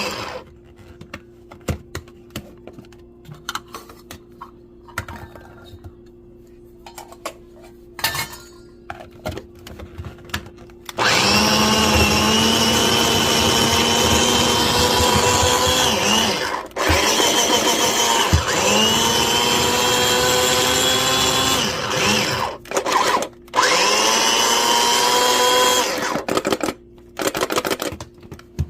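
Small electric food chopper motor chopping garlic in pulses. First come several light clicks and knocks. Then, about a third of the way in, the motor spins up with a rising whine and runs loudly in several bursts, stopping briefly a few times and rising again at each restart.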